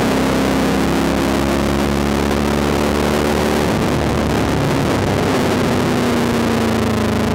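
V8 Supercar engine heard from inside the cockpit, running hard on track; its note breaks and changes about halfway through, then slowly climbs in pitch near the end.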